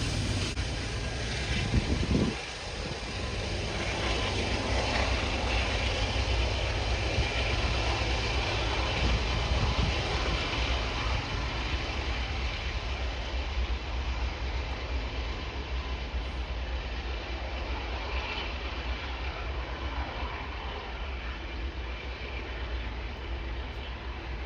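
CN freight train's cars rolling past, a steady rumble of wheels on rail. There is a brief knock about two seconds in.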